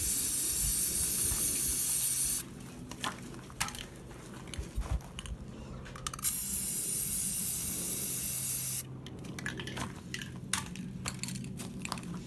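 Aerosol spray paint can spraying in two long hissing bursts, one at the start lasting about two seconds and another starting about six seconds in. Light clicks and handling knocks come between and after them.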